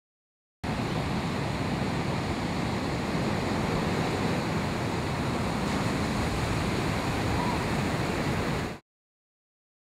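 Ocean surf: a steady rush of breaking waves and whitewater. It cuts in suddenly about half a second in and cuts off abruptly near the end.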